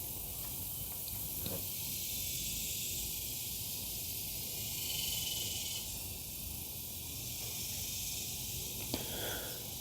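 Steady, fairly quiet background hiss, with two faint clicks: one about a second and a half in and one near the end.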